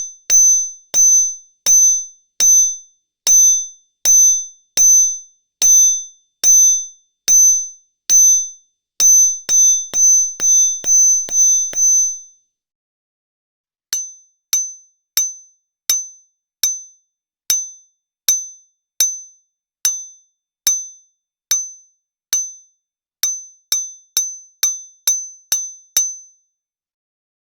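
A small hammer striking the end of a straight metal pry bar, giving short, bright ringing pings about one a second. The strikes quicken near the end of each of two runs, with a pause of about two seconds between them, about halfway through.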